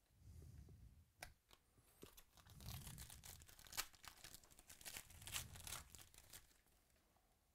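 A 2018 Chronicles Baseball trading-card pack's wrapper being torn open and crinkled by hand: faint crackling with scattered sharp clicks, busiest in the middle of the stretch.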